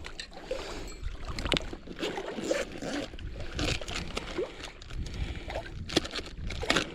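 Scattered knocks, clicks and rustles of fishing gear being handled in a small boat, over a low steady rumble.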